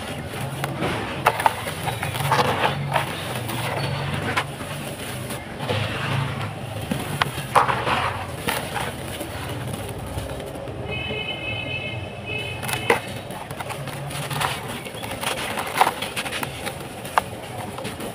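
Dry sand-and-cement mud crumbled by hand: clumps crunch and break apart and fine powder sifts down, with scattered sharp crunches throughout.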